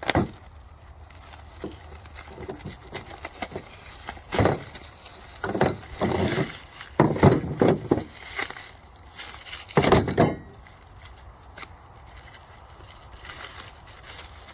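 Handling noise from unpacking steel sawmill parts: scattered knocks, scrapes and rustles, with the loudest knock about ten seconds in and quieter stretches between.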